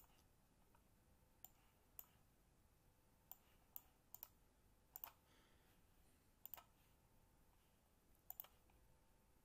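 Faint computer mouse clicks, about a dozen short clicks, some single and some in quick pairs, scattered irregularly over quiet room tone.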